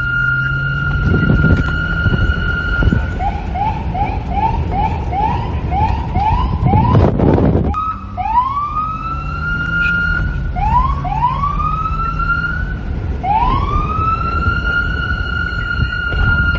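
NYPD police car siren: a steady high tone for about the first three seconds, then a fast yelp of about three rising chirps a second, then slow wails that rise and hold high, four times. A burst of low rumble comes around the middle, and wind rumbles underneath throughout.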